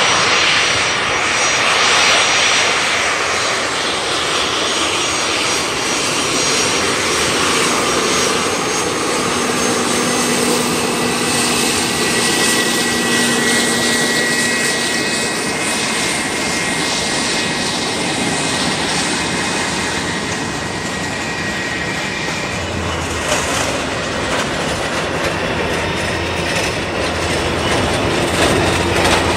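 Loud, steady jet airliner engine noise, with a faint high whine through the middle and a deeper rumble building near the end.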